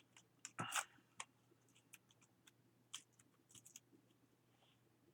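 Faint clicks and soft rustles of paper and craft tools being handled, with one louder rustle a little under a second in.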